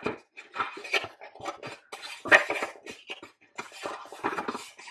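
Paperback tarot guidebook being opened and its pages flipped by hand: a run of irregular paper rustles and light knocks, loudest a little over two seconds in.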